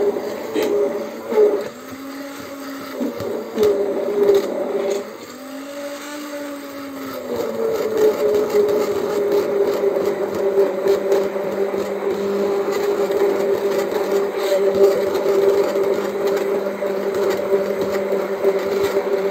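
Hand-held immersion blender running in a glass jar of thick chocolate mixture (milk, sugar, cocoa and dark chocolate). Its whine dips in pitch and recovers a few times in the first seven seconds as the blade meets the mixture. From about seven seconds in it runs steadily at a higher pitch and louder.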